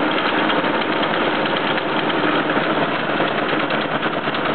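Old Biernatzki milling machine running under load, its face mill cutting a steel workpiece at a 2 mm depth of cut, in a steady, dense, harsh noise. Part of the ugly sound comes from two gears in the machine's drive.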